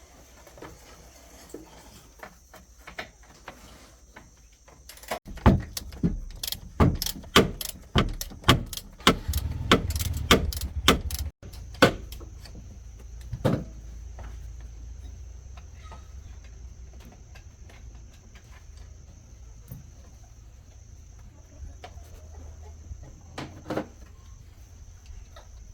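A run of loud, sharp knocks, about two a second for roughly six seconds, then a few single knocks. Crickets chirp steadily in the background.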